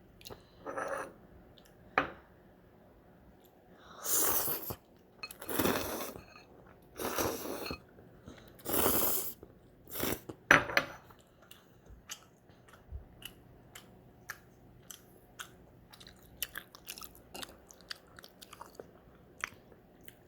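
Ramen noodles being slurped in four long, breathy pulls about four to ten seconds in, followed by wet chewing with many small clicks.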